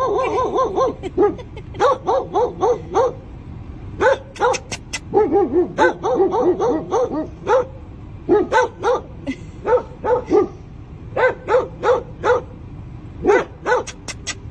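A dog barking repeatedly: short, high yappy barks in quick runs of several at a time, with brief pauses between the runs.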